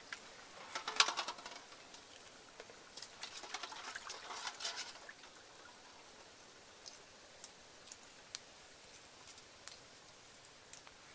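Eggs being handled in a bowl of water: a splash and dripping about a second in, then a few seconds of water sloshing with eggs knocking together, followed by a few light, scattered taps.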